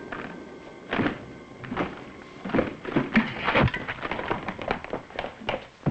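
Irregular knocks and thuds on a wooden door with scuffling movement, busiest in the middle.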